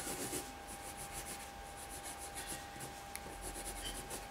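Pencil scratching on drawing paper in quick, short, repeated strokes as an eye is shaded in.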